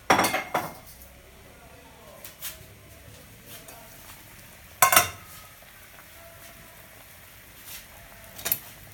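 Knocks and clatters of pots and kitchen utensils: a cluster right at the start, a loud double knock about five seconds in and another knock near the end, over the faint hiss of a pot of broccoli boiling on the stove.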